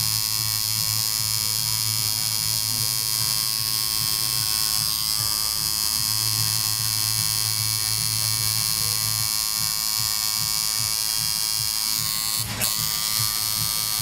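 Coil tattoo machine buzzing steadily as its needle works into the skin, with one short click about twelve seconds in.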